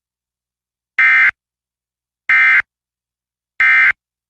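Emergency Alert System end-of-message signal: three short, loud bursts of digital data tones (the SAME "NNNN" code), evenly spaced a little over a second apart. They mark the end of the warning broadcast.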